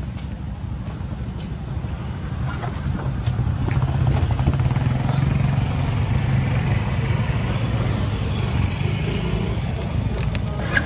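Small motorcycle engine idling with a steady low rumble, getting louder about four seconds in.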